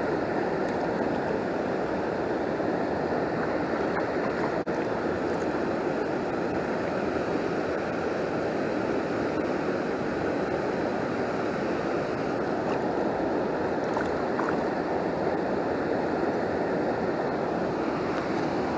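Steady rushing of a small rural stream, its flow still up after heavy rain.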